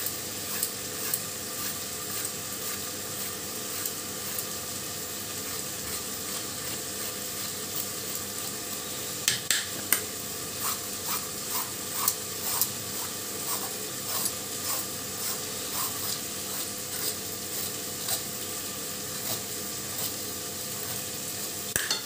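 Onion-tomato masala sizzling steadily in a pan, with irregular short scraping clicks of a vegetable peeler stripping the skin off ridge gourds, busiest from about nine to thirteen seconds in.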